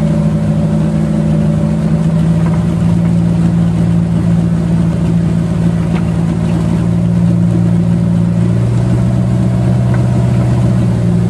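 Engines of wooden motorboats running steadily while underway. About nine seconds in, the engine note shifts lower.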